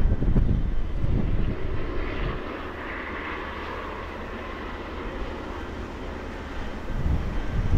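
Aircraft engine noise, a rushing hiss that swells and fades through the middle, with wind gusting on the microphone at the start and end.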